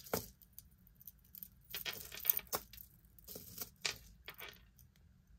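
Costume jewelry being handled: a metal bangle bracelet and chain links clinking and clicking lightly against each other and the tabletop in a few scattered spells.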